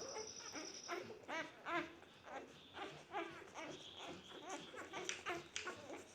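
Newborn puppies squeaking and whimpering, many short high-pitched cries a few times a second, overlapping. A thin steady high tone sounds for about the first second.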